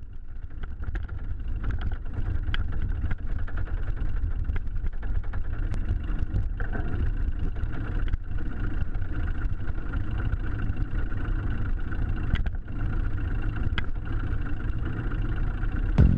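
Steady low rumble of wind and road noise picked up by a camera riding on a moving bicycle, with a few faint clicks.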